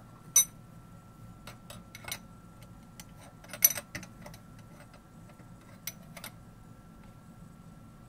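Scattered sharp metal clicks and knocks as tools and the head of a benchtop milling machine are handled while the head is set square and its bolts snugged. The two loudest knocks come about half a second in and midway through.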